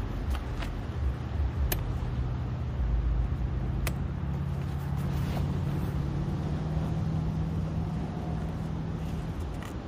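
Wind rumbling on the microphone over a steady low engine drone that rises slightly in pitch. Two sharp clicks come about two seconds apart as the folding camping chair's canopy frame is handled.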